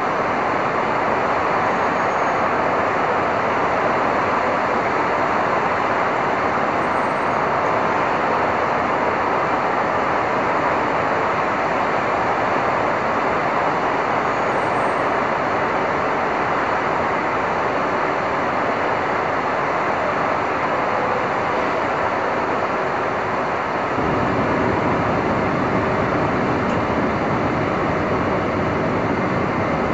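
Steady city-street traffic noise in stormy weather, an even wash of tyres, engines and rain with no single event standing out. The deep rumble changes abruptly about 24 seconds in.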